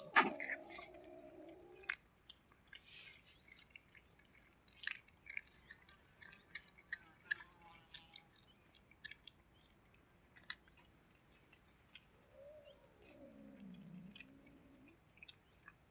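A cat chewing and crunching food close up, in small scattered clicks. Near the end a drawn-out animal call rises and falls.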